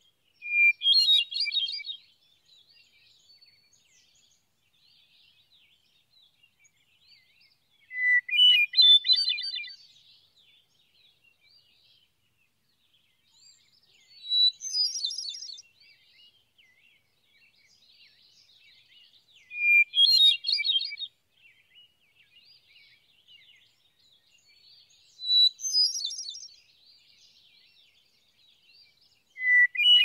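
Hermit thrush singing: a series of separate phrases, a new one every five to six seconds. Each opens with a held, pure whistled note, followed by a quick flutey cascade of higher notes. The opening note sits at a different pitch from one phrase to the next, some low and some high.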